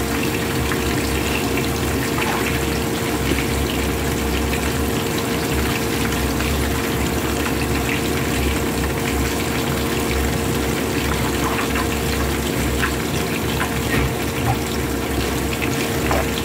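Whole fish deep-frying in a pan of hot oil: a steady sizzle and bubbling, full of small crackles and pops.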